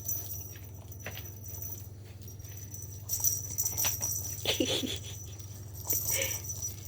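Cat playing with a toy: scattered light clicks and patter over a steady low hum, with two short cat cries, one about four and a half seconds in and one about six seconds in.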